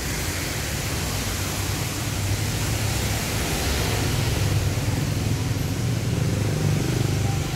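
Steady rushing street noise with a low engine-like hum underneath, growing slightly louder about two seconds in.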